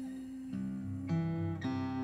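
Solo acoustic guitar: a chord rings out, then from about half a second in new chords are picked or strummed, changing about every half second with low bass notes underneath.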